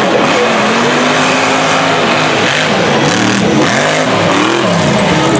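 Mega truck engine revving hard as the truck races over a dirt course. There is one long pull, then the revs rise and fall several times in quick succession as the throttle is worked over the bumps.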